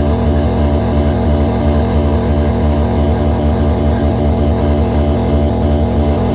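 Loud noise-music performance: a low, buzzing electronic drone that stutters rapidly on and off without a break.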